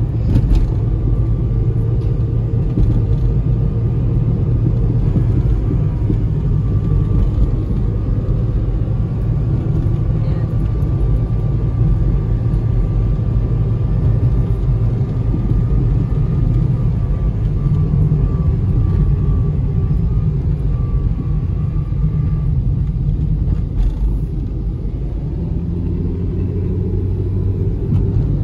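Steady low rumble of a vehicle on the move, engine and road noise, with a faint thin whine through the middle.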